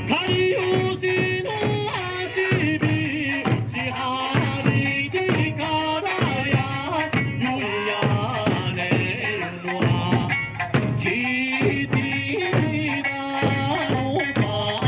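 Music: a melody, perhaps sung, over a steady drumbeat.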